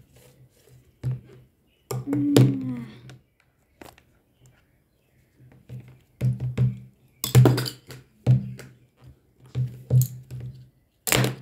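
Irregular knocks and clunks of a tall refill-ink bottle and paint markers being bumped together and knocked over on a paper-covered table, with a short wavering tone about two seconds in.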